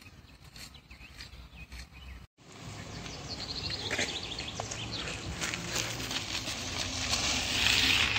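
Outdoor park ambience with birds chirping. After a brief dropout about two seconds in, it grows louder, with irregular crunching steps on a gravel path that build up near the end as a jogger runs close by.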